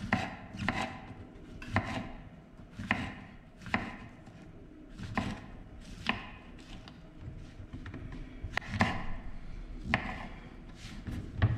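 Knife slicing button mushrooms on a wooden cutting board: a dozen or so separate cuts, each ending in a sharp knock on the board, at an uneven pace of roughly one a second.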